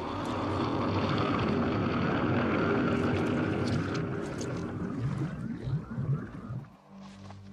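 Film sound effect of churning, gurgling earth as the ground swallows a buried man: a dense low rumble full of short gurgles that dies away sharply near the end.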